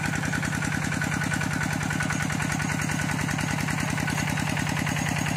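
Engine of a pond-draining water pump running steadily with an even, rapid beat, pushing water out through a 6-inch pipe.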